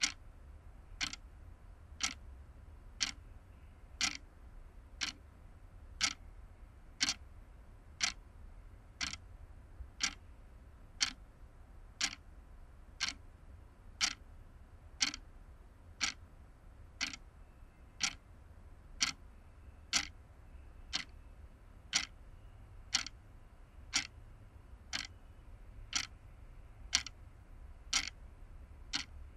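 Analog wall clock ticking steadily, one sharp tick each second.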